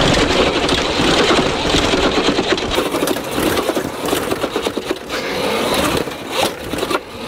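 CAKE electric motocross bike climbing a flight of concrete stairs: a fast, continuous rattling clatter as the tyres and chassis judder over the step edges.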